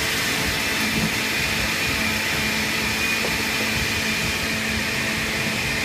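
Electric bar blender running steadily, blending ice, strawberries and rum into a frozen daiquiri.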